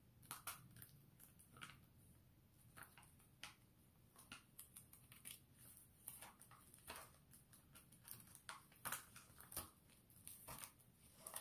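Scissors cutting through a self-adhesive rhinestone wrap sheet: a string of faint, irregular snips and clicks.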